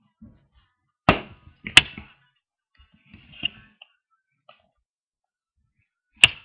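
A few sharp knocks and bumps from handling close to the microphone: two loud ones about a second in, a softer one midway, and another near the end, with faint rustling between.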